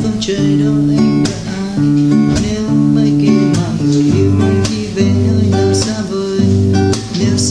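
Nylon-string classical guitar played as a rhythmic chord accompaniment: held bass notes with chord strokes across the strings at a steady beat, about every half second to a second.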